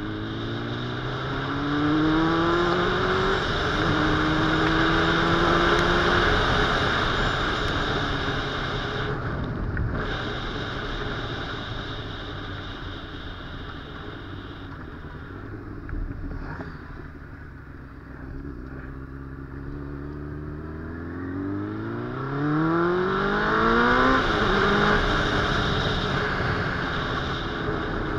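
Inline-four sport motorcycle engine accelerating, its pitch rising then dropping at a gear change a few seconds in, then running steadily. It goes quieter while the bike eases off in the middle, then pulls hard again with rising pitch and another gear change near the end, over a constant rush of wind noise.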